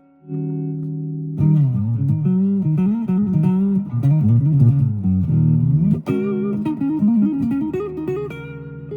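Fernandes TEJ-70 electric guitar played through an amp: a held chord, then single-note lead lines with string bends and vibrato. A fresh chord is struck about six seconds in.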